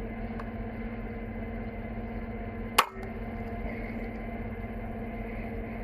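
A single shot from an FX Impact .22 PCP air rifle about three seconds in, a short sharp report over a steady low hum.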